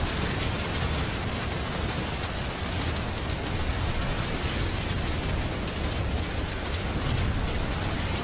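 A steady rushing hiss with a low rumble underneath and no distinct hits: a cartoon sound effect for masses of paper sheets spreading through the rain.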